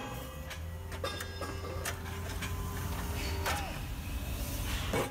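Forge shop machinery around a hot forging in a ring die: a steady low rumble with scattered clicks and knocks, the sharpest knock near the end.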